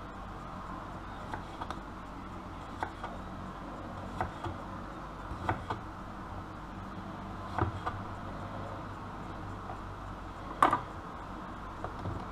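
Kitchen knife slicing a cucumber on a wooden cutting board: the blade taps the board with each cut, in short knocks about a second apart, some in quick pairs, the loudest near the end. A low steady hum runs underneath.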